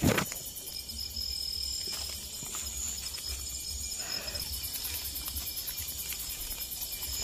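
Steady chorus of night insects such as crickets: an even high trill with a fast pulsing above it. A sharp knock comes right at the start, and there is a soft rustle of grass and dry leaves about four seconds in.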